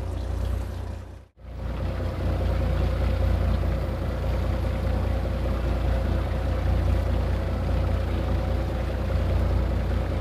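Fishing boat's engine idling: a steady low rumble with a faint steady hum above it. The sound drops out briefly about a second in, then carries on unchanged.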